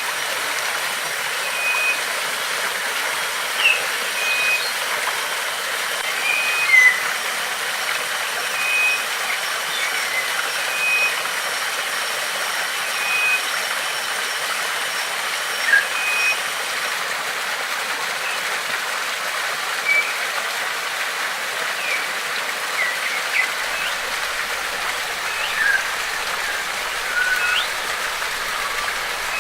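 Water rushing steadily, as of a waterfall or stream, with birds calling over it. For the first half, one bird repeats a short note about every second and a half, and brief chirps come throughout.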